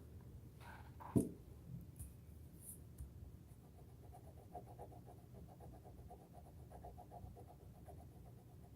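A child coloring on paper, faint repeated scratching strokes, with a single sharp knock about a second in.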